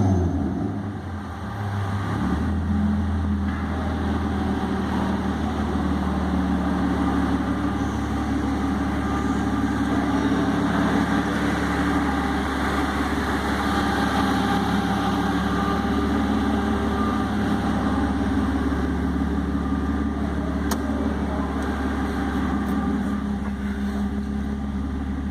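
BMW E36 325i straight-six engine falling back from a rev in the first two seconds, then idling steadily through the exhaust.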